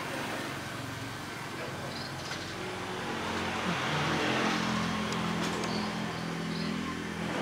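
Outdoor background noise: a steady hiss with a low hum that swells about four seconds in and then eases off.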